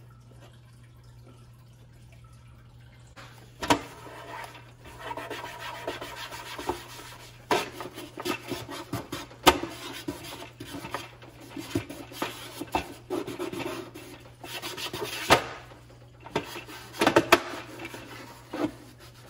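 A cloth rubbed back and forth over the textured plastic back housing of a wall clock, in irregular scrubbing strokes with a few sharp knocks. It starts about four seconds in.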